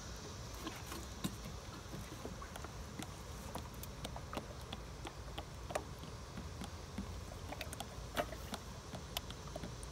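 AW68 hydraulic oil pouring in a thin stream from a 5-gallon bucket's spout into a funnel, with scattered small clicks and ticks over a steady low rumble.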